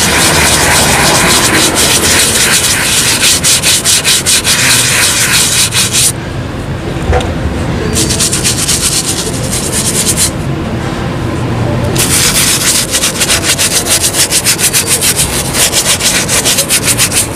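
Small bristle brush scrubbing a suede boot in rapid strokes, working cleaning gel into the nap. The scrubbing stops briefly twice along the way.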